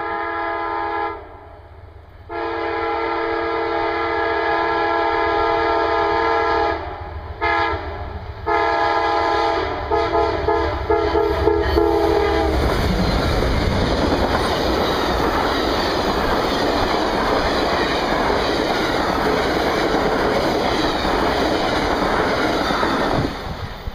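Amtrak Crescent's GE Genesis diesel locomotive sounding its multi-chime air horn in a long-long-short-long pattern: the grade-crossing signal. It then passes close by, followed by loud, steady wheel-and-rail noise with clickety-clack from the passenger cars, which cuts off near the end as the last car goes by.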